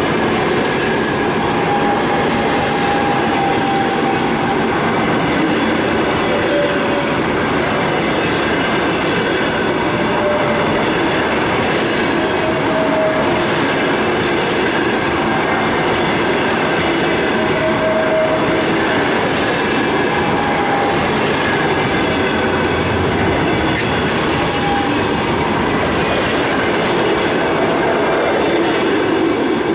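Russian passenger coaches of a departing train rolling past close by: a steady rumble of steel wheels on rail, clickety-clack over the rail joints, and several brief faint wheel squeals.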